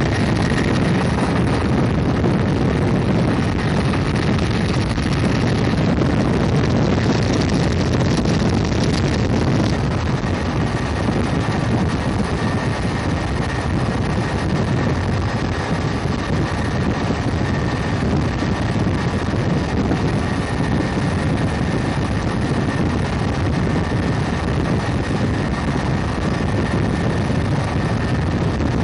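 Helicopter in flight heard from inside the cabin with the door open: steady engine and rotor noise mixed with rushing wind, with a faint steady high whine. The sound shifts slightly about ten seconds in.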